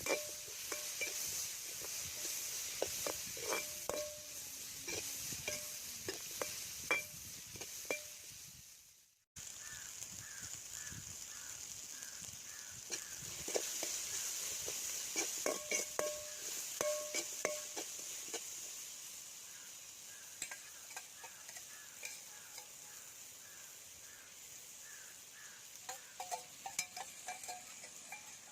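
Food sizzling as it fries in a pan, with a ladle stirring and knocking against the pan now and then. The sizzle breaks off for a moment about a third of the way through, then carries on.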